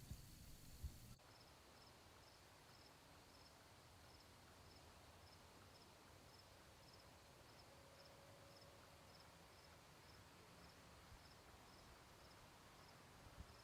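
Very faint outdoor ambience in which an insect chirps in short, high pips about twice a second. A click and a sudden drop in the background hiss come about a second in.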